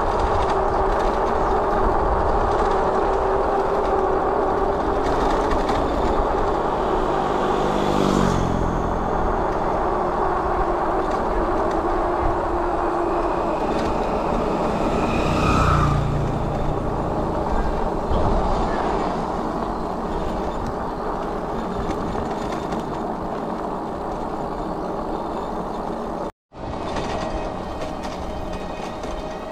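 Road noise while riding a bicycle: a steady rush of wind on the microphone, with the engine of a passing motor vehicle whose pitch drops about eight seconds in.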